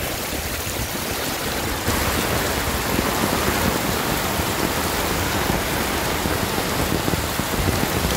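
Heavy rain pouring down onto a flooded street, with the hiss of rain mixing with rushing floodwater. The sound steps up in loudness about two seconds in and stays steady after.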